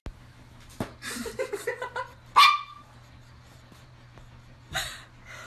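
A dog vocalising, with softer sounds leading up to one loud, sharp bark about two and a half seconds in. A steady low hum runs underneath.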